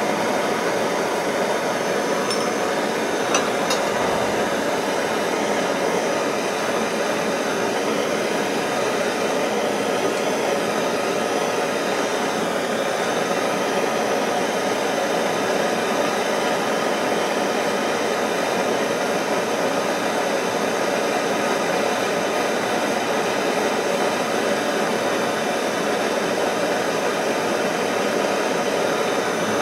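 Hose-fed gas torch burning with a steady hiss, its flame heating a pistol frame for silver soldering. There is a faint click a little over three seconds in.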